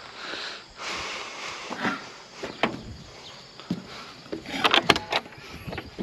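Footsteps scuffing on gravel and straw, then a quick cluster of metallic clanks and knocks about five seconds in as someone climbs into a skid loader's cab by its grab handle. The loader's engine is off.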